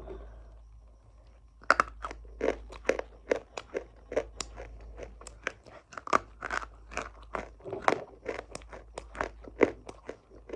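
Crunchy food being bitten and chewed close to the microphone: a fast run of crisp crunches, about two to three a second, starting nearly two seconds in.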